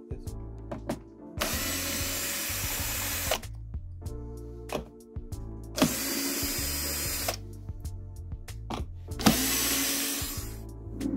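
Electric screwdriver running in three bursts of one to two seconds each, driving screws out of a soundbar's housing, with small clicks of screws and parts in between, over background music with a steady bass line.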